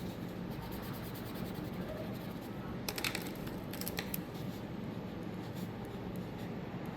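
Scratchy strokes of a coloring tool on a paper worksheet as blocks are colored in, with a few light taps about three seconds in.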